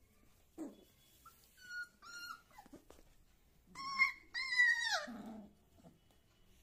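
Four-week-old beagle puppies play-fighting: a few short, thin whimpers, then two louder high-pitched cries about four seconds in, the second sliding down in pitch.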